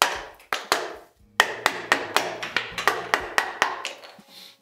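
Wooden carver's mallet striking a chisel, knocking waste wood off a corbel's contour: a few spaced blows, then a quick flurry of about four a second from about a second and a half in.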